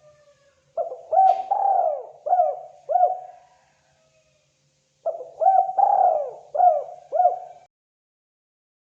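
Spotted dove (tekukur) cooing: two phrases of several quick coos each, the first starting about a second in and the second about five seconds in, each note rising and falling in pitch.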